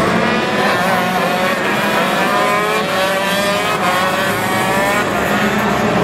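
Several go-kart engines running on a circuit, their pitch rising and falling as the karts accelerate and ease off.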